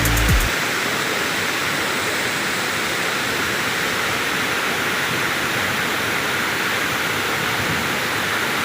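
Waterfall's falling water, a steady, even rush of noise. A music track cuts off about half a second in.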